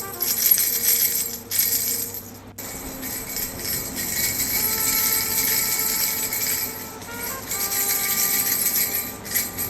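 Baby rattle toy shaken, its bells jingling steadily, over a slow melody of held notes. The jingling breaks off sharply for a moment about two and a half seconds in, then goes on.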